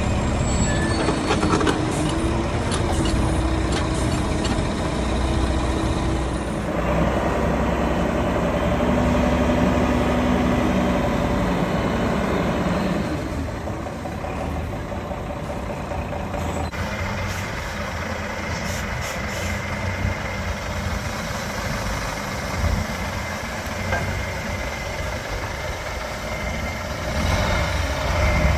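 Diesel engine of a Terberg TT222 terminal tractor running, mostly at idle, with its sound changing abruptly a few times.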